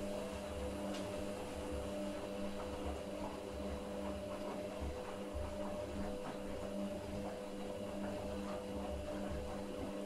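Candy GO 510 front-loading washing machine during a boilwash, its motor turning the drum with a steady hum while the wet load tumbles and sloshes inside.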